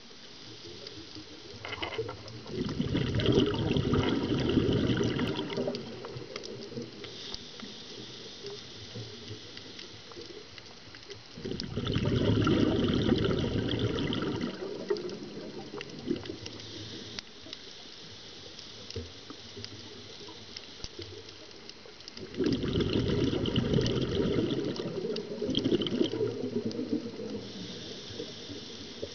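Scuba diver breathing through a regulator underwater: three bursts of exhaled bubbles, each about three seconds long and roughly ten seconds apart. Between them are quieter stretches of faint crackling.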